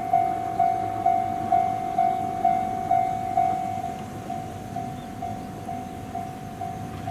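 Railway level-crossing warning bell ringing, one clear tone struck about twice a second, growing quieter about halfway through.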